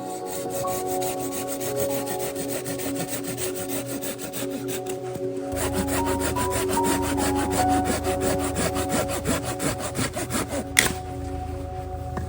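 Hand saw cutting through wood in quick, even back-and-forth strokes, ending with a sharp crack near the end.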